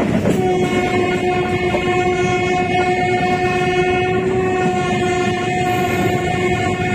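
A train horn sounds a fraction of a second in and is held as one long blast at a steady pitch, over the running noise of the train on the track. The steady pitch fits the Bagh Express's own locomotive sounding as it approaches Barauni station.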